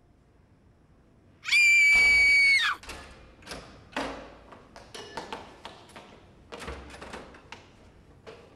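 A loud, steady, high-pitched squeal held for about a second, followed by a run of irregular knocks and clicks from the restroom doors opening and banging shut.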